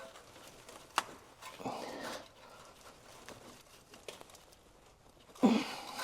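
Hands working a spark plug wire boot loose by hand: a sharp click about a second in, then scattered scraping and rubbing, and a short louder burst near the end.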